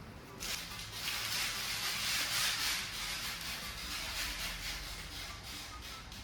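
Scratchy rubbing noise that starts abruptly about half a second in, is loudest over the next couple of seconds, then tapers off.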